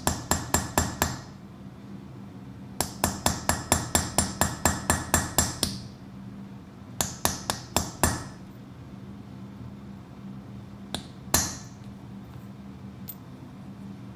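Hammer tapping a small chisel to drive rune lines into a metal pendant: quick runs of light, ringing strikes at about five a second, three runs in a row, then two single blows near the end. The chisel pushes the metal aside rather than cutting any away.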